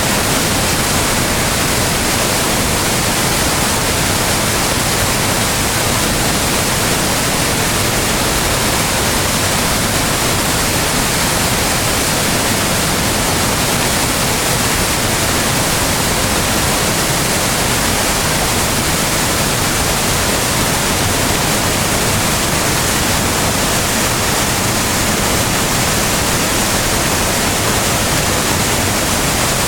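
Waterfall of some twenty metres in full spring flow: a steady, thunderous rush of falling water.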